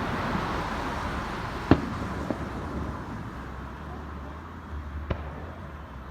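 Fireworks going off: a sharp bang about two seconds in, a fainter pop just after, and another bang near the end, over a steady background noise.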